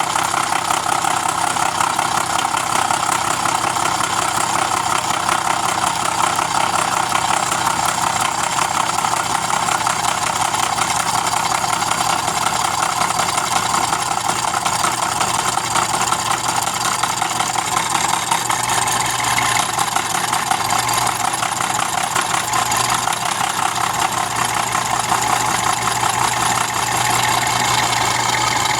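Bridgeport-style knee mill running steadily, its 4-inch carbide insert cutter milling the edge of a steel lawn mower blade, with a constant machine hum under the cutting noise.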